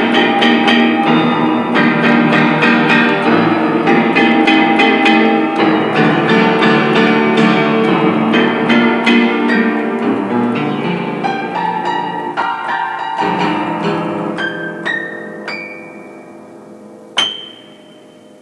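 Piano music: many struck notes at a lively pace that thin out and fade in the second half, ending with a few single high notes and one sharp bright note near the end.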